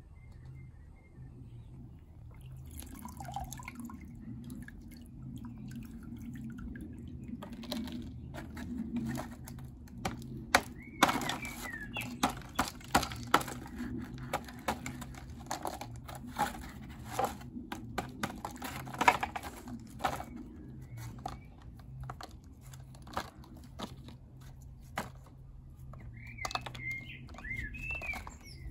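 A hammer repeatedly striking a water-soaked plaster of paris investment mould, cracking and breaking it apart to free a cast aluminium skull. The knocks are irregular and start about seven seconds in, some much louder than others.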